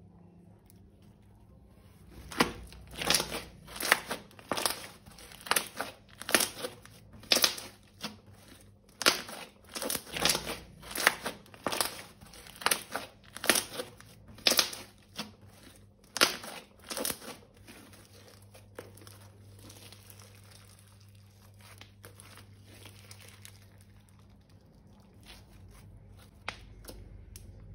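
Crinkling, crackling handling sounds in a quick irregular series, roughly one or two sharp bursts a second, as material is squeezed or crumpled during slime making. They stop about seventeen seconds in, leaving only faint rustling.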